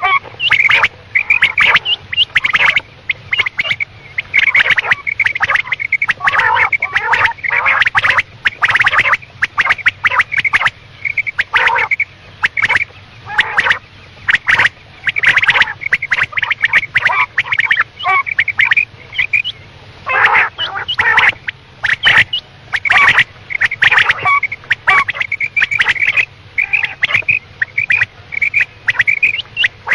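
Quail calling over and over in quick runs of short, sharp notes with brief pauses between runs. It is a recorded quail call of the kind played to lure quail in for hunting.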